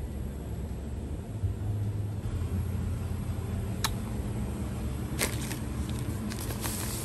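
Shop background noise: a low steady rumble, with a few sharp clicks or taps about four and five seconds in and more near the end.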